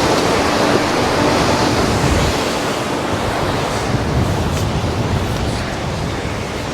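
Sea surf washing in steadily, a continuous rushing wash of waves.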